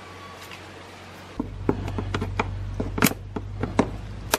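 Hands working the plastic air cleaner box and its hold-down clips: a quick run of sharp plastic clicks and knocks, about a dozen in under three seconds, starting about a second and a half in. A low steady hum comes in with them.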